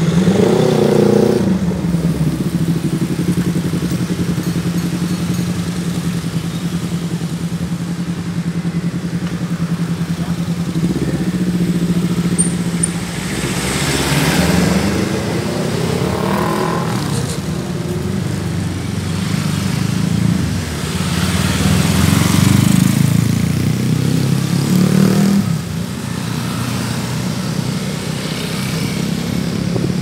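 Street traffic: a steady engine hum with cars and motorcycles passing one after another. The loudest passes come around the middle and again about two-thirds of the way through.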